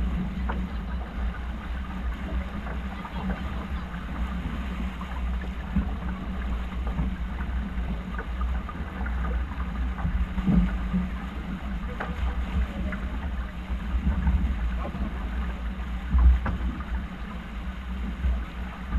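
Wind rumbling on the microphone over the water noise of a sailing yacht under way, with a few scattered knocks.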